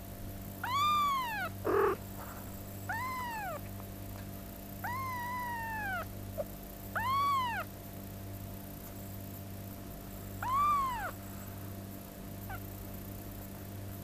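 Two-week-old kittens mewing: five high, thin mews spaced one to three seconds apart, each rising then falling in pitch, the one about five seconds in drawn out longer. A short rough sound comes about two seconds in.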